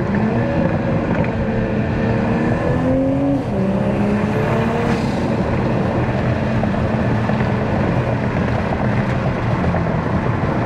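Toyota Supra A90 engine, on the stock exhaust with an aftermarket downpipe, heard from the cabin with the windows down. The engine note rises under acceleration, drops sharply at an upshift about three and a half seconds in, then runs on fairly steadily, with road and wind noise underneath.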